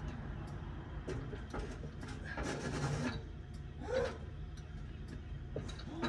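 Faint handling noises, scrapes, knocks and clicks, as a heavy electric air raid siren is carried away from a car, over a low steady rumble. A brief vocal sound, like a grunt of effort, comes about four seconds in.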